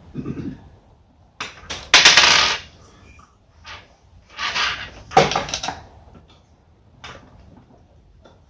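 Small metal parts, screws, nuts and a metal mounting plate, clinking and rattling as they are handled. There are several short bursts with a few clicks between them, the loudest about two seconds in.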